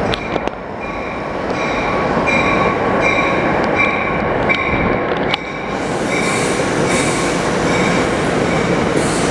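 New Jersey Transit commuter train pulling into a station: a steady loud rumble of the passing cars, with a high squeal from the wheels that comes and goes. A few sharp clicks come near the start and again about five seconds in.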